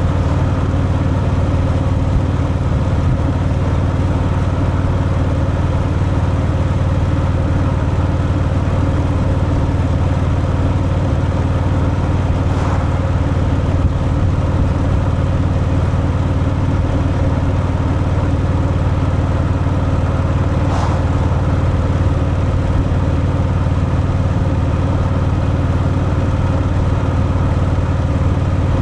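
Harley-Davidson Fat Boy's air-cooled V-twin running steadily through its stock exhaust, holding an even pitch with no revving.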